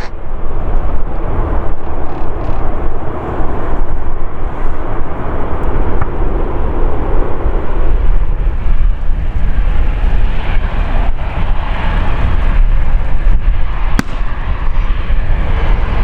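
Airbus A320 jet engines running loud on the landing roll, a dense jet noise over a heavy low rumble, with one sharp click about 14 seconds in.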